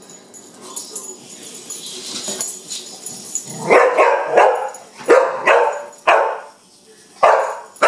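Young pit bull barking at a wind-up toy bug: a string of about six loud, separate barks starting about halfway through.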